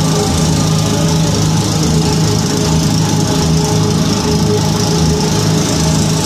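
A boat's engine running steadily at a constant speed, heard from on board, with a steady low hum and a hiss of water or wind over it.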